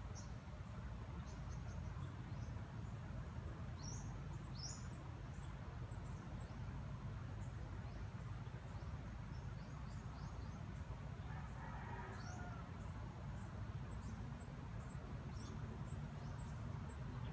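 Outdoor rural ambience: a steady high insect trill runs throughout, with a dozen short high chirps scattered through it, under a constant low rumble of wind or handling noise.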